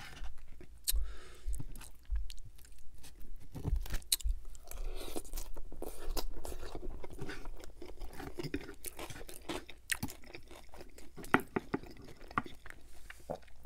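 Close-miked chewing of a mouthful of poutine (fries, gravy and cheese curds), with many short, sharp clicks and crunches.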